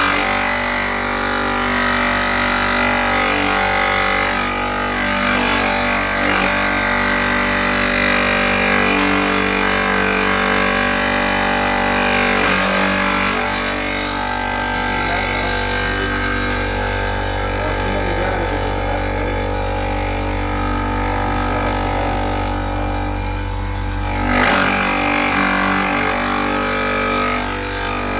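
Benchtop saw's motor and blade running steadily while a marble slab is wet-cut, a steady drone made of several held tones whose middle pitches shift as the cut loads the blade. About 24 seconds in the low hum changes and the sound briefly gets louder.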